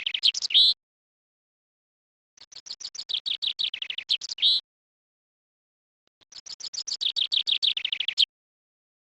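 A songbird singing a repeated song phrase. Each phrase is a rapid, high-pitched series of notes ending in a short flourish. One phrase ends shortly after the start, and two more full phrases follow with pauses between them.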